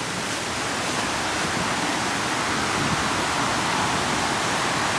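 Steady rush of fast-flowing river water, growing slightly louder.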